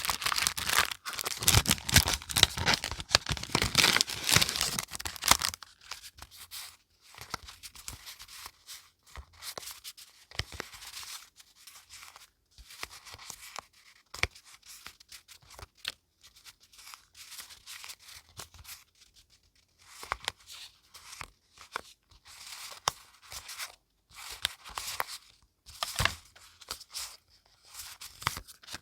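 Paper being torn and crinkled loudly for about the first five seconds, then quieter scattered rustling and small taps of paper being handled.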